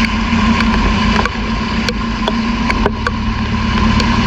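Cars driving slowly through a flooded street: engines running under a steady low rumble and water washing around the tyres, with scattered sharp ticks throughout.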